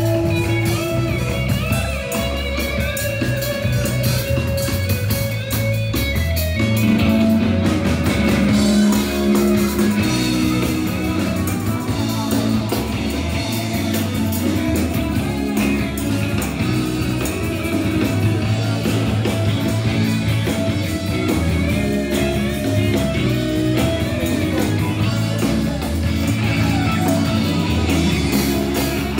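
Rock music with guitar and drums, playing continuously.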